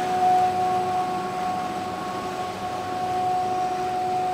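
WPC plastic profile extrusion line running: steady machine noise with a constant high-pitched whine.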